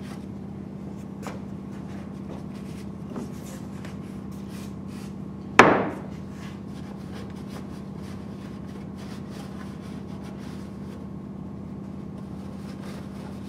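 Faint rubbing and handling of a rag wiping grease from the corner posts inside a CarveWright CNC carver, with small scattered clicks over a steady low hum. A little before halfway through comes one sharp, loud knock.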